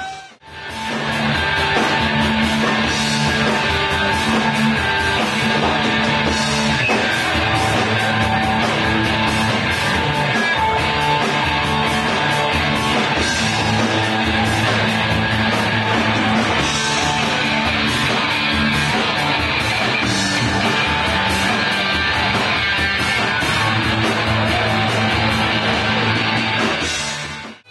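Live rock band playing electric guitar over bass and drums, the sound cutting out briefly just after the start.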